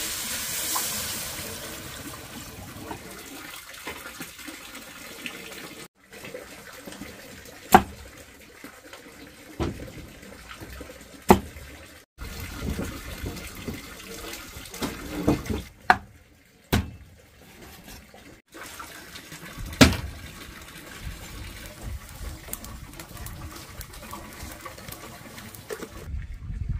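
Water running, broken by several sharp knocks.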